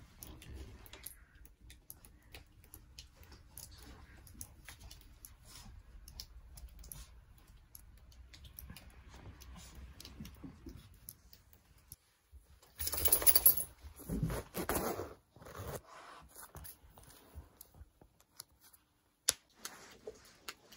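Faint crunching footsteps in fresh snow: a scatter of small crisp clicks. A few louder rustling bursts come about two thirds of the way in, and a single sharp click comes near the end.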